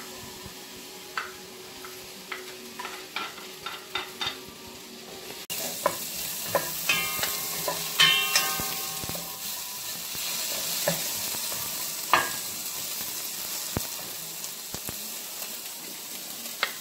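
Chopped onion sautéing in hot oil in an aluminium wok, sizzling, with a wooden spatula stirring and knocking against the pan. The sizzle jumps suddenly louder about five seconds in; before that the pan is quieter, with scattered clicks of the spatula.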